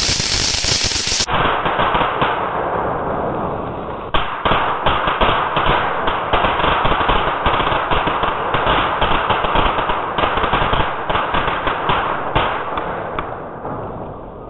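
Ground fountain firework spraying sparks with a dense, rapid crackling and popping. There is a loud hissing burst in the first second and a brief dip about four seconds in, then the crackling picks up again before fading near the end as the fountain burns out.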